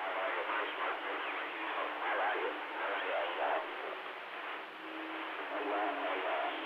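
Garbled, unintelligible voices coming through a CB radio receiver, thin and band-limited over a hiss of static, with a steady low hum tone under them near the end.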